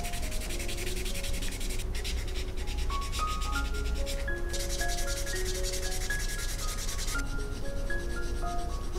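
Sanding sponge rubbed in quick back-and-forth strokes on a plastic model kit part, with short breaks about two and four seconds in and lighter strokes near the end. Soft melodic background music plays underneath.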